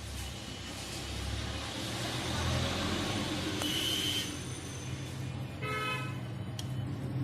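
Street traffic noise with a steady low rumble and vehicle horns tooting briefly, about four seconds in and again about six seconds in.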